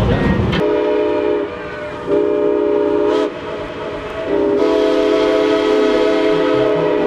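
Narrow-gauge steam locomotive's chime whistle sounding three blasts: two short ones, then a long held one. Each blast is a steady chord of several tones.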